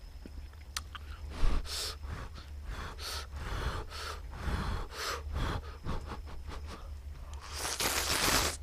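Ramen noodles from budae-jjigae being slurped from a bowl, close to the microphone: a run of short slurps with a longer, louder slurp near the end. A brief thump about a second and a half in.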